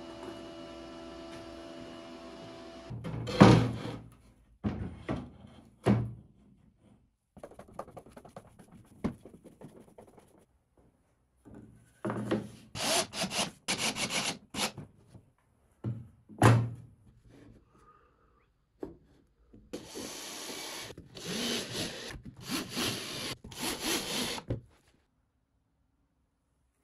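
Cordless drill driving screws into a wooden board, run in a series of short bursts in two spells, with scattered knocks and clunks of parts being set down between them.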